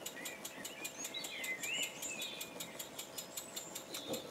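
Small wig-wag oscillating engine running steadily, its exhaust giving a rapid, even rhythm of short hissing puffs as it drives a miniature lathe by belt. Birds chirp in the background.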